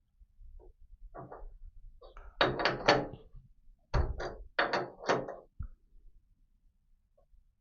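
Steel tool-post parts knocking and clattering together as they are handled and fitted: a few light knocks about a second in, then two louder runs of clatter, around two and a half seconds and around four seconds in.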